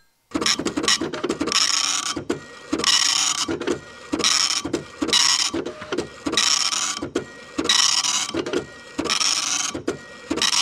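Rhythmic mechanical clatter that repeats in cycles about every one and a half seconds. Each cycle has a loud, hissy, high-pitched pass over a run of quick low ticks.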